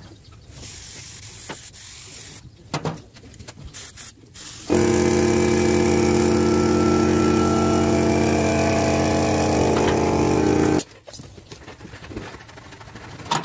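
A machine's steady buzzing hum, switched on suddenly about five seconds in and cut off just as suddenly about six seconds later, with a few knocks and handling sounds before it.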